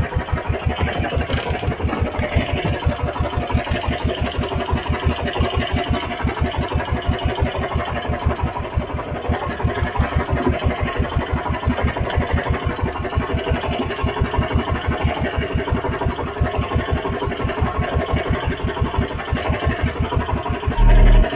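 Small engine of a motorized outrigger fishing boat running steadily at low speed, an even, rapid putter, with a brief louder low rumble near the end.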